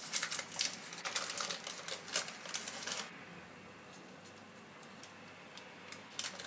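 Parchment paper crackling and rustling under hands as a sheet of dough is rolled up on it. A quick run of small crackles lasts about three seconds, then only a few faint ticks.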